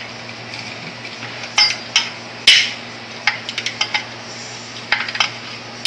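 Scattered metallic clinks and clanks from hand tools and exhaust pipework as a cat-back exhaust is fitted under a car, with a quick run of light clicks in the middle. A steady low hum lies beneath.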